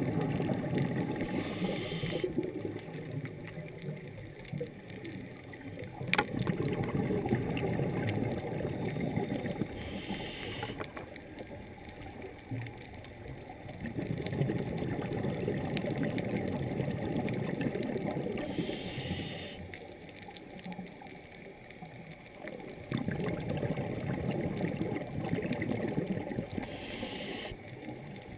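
A scuba diver breathes through a regulator underwater, heard muffled through a GoPro dive housing. A short hiss on each inhale alternates with a few seconds of bubbling rumble on each exhale, in a slow, regular cycle of about one breath every 8 to 9 seconds, four times over.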